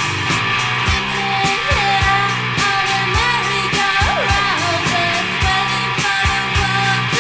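Punk rock song playing: distorted guitars over a steady drum beat, with a melody line sliding up and down in pitch through the middle.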